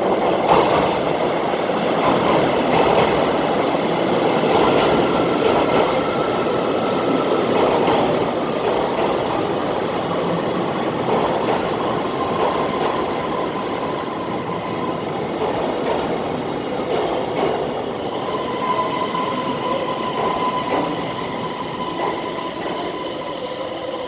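Train moving slowly through a station platform: a steady rumble of wheels on rails with scattered clicks over the rail joints and a faint thin wheel squeal, slowly easing off towards the end.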